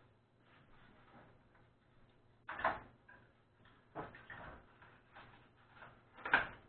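A few knocks and clatters of kitchen things being handled on a counter: three sharp strokes about a second and a half apart, the loudest near the end.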